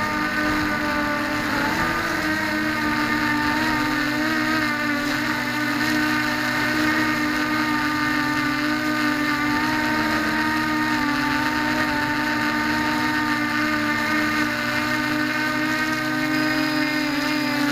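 Small quadcopter's electric motors and propellers buzzing steadily in flight, the pitch wavering slightly as the throttle changes, with a brief dip about two seconds in.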